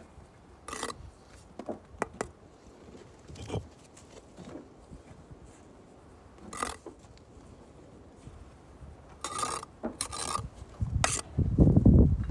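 Bricklayer's trowel scraping over mortar and brick in several short strokes, with scattered light clicks, then a few heavier low thuds near the end.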